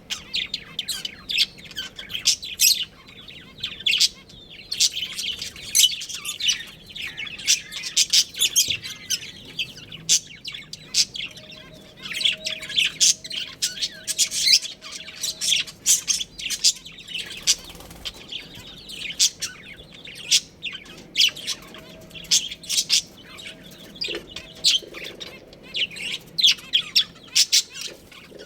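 A group of budgerigars chirping: a dense, continuous stream of quick high-pitched chirps.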